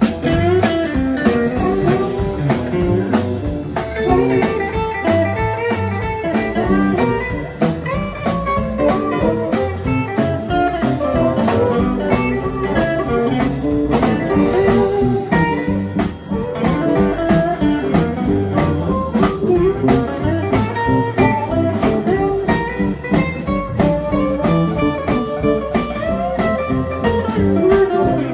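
Live blues band playing an instrumental passage: amplified harmonica over electric guitars, upright bass and drum kit, with a steady beat.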